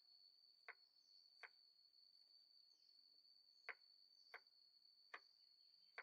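Kitchen knife slicing garlic cloves on a wooden cutting board: about six faint, sharp taps of the blade hitting the board at uneven intervals. A steady high-pitched whine runs underneath.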